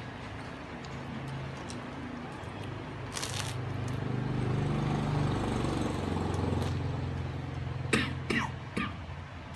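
Low engine hum of a passing motor vehicle that swells through the middle and fades, with a crunch about three seconds in and a few sharp crackles near the end as a crusty bánh mì baguette is bitten and chewed. The crackles are the loudest part.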